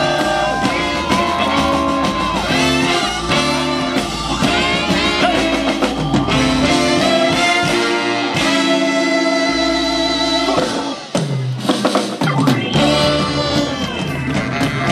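Live swing band playing up-tempo music with brass horns, including trumpet, over a drum kit, with a brief break about eleven seconds in.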